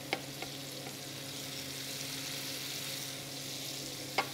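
Venison loin steaks searing in a hot frying pan of vegetable oil, a steady sizzle just after the meat goes in. A couple of short clicks come just after the start and near the end, with a low steady hum underneath.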